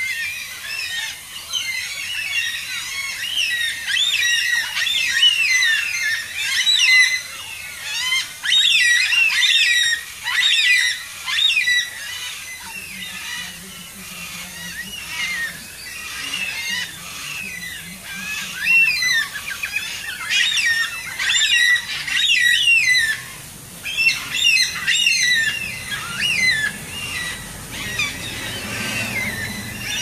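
A flock of Carnaby's black-cockatoos calling: many short calls that bend up and down in pitch, overlapping in busy runs, with a calmer stretch in the middle.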